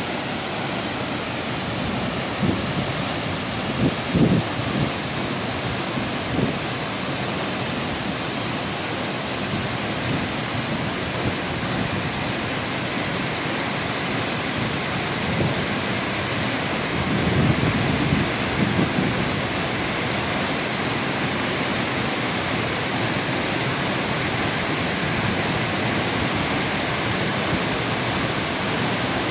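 A 72-metre waterfall, a steady rushing of falling water. A few brief low rumbles stand out about four seconds in and again around seventeen to nineteen seconds in.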